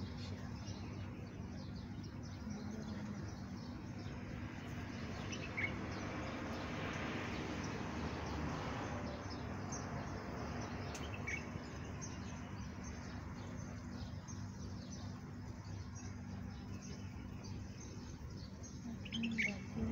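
Outdoor ambience: a steady low hum, with a few short bird chirps now and then. A wash of noise swells and fades in the middle.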